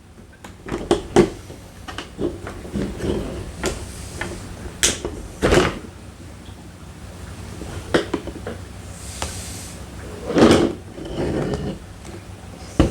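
Small flathead screwdriver prying at a stuck door latch part inside a car door: irregular clicks, knocks and scrapes of metal and plastic, with a few louder knocks about five and ten seconds in.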